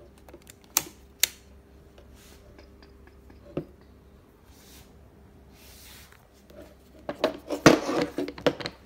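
Scattered clicks and knocks from a Metabo BE 650 drill's plastic housing being handled and turned over on a table, ending in a quick run of knocks and clatter near the end, the loudest about three-quarters of the way through.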